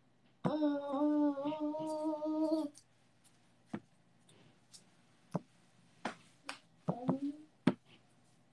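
A person humming one held note for about two seconds, followed by scattered faint clicks and a short voiced sound later on.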